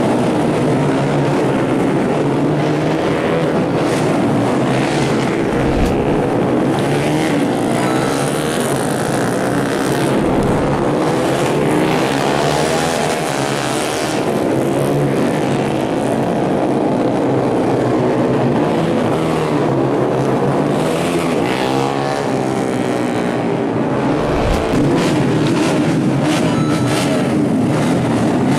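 Many 150cc four-stroke underbone race motorcycles revving together, a dense mix of engine notes rising and falling.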